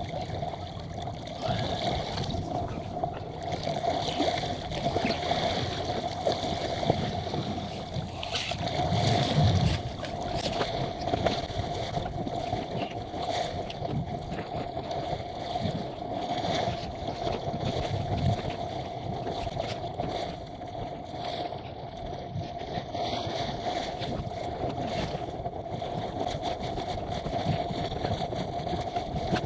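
Small sailing yacht running under reefed sail in strong wind: water rushing and gurgling along the hull with wind noise, swelling and easing with the waves, over a steady hum.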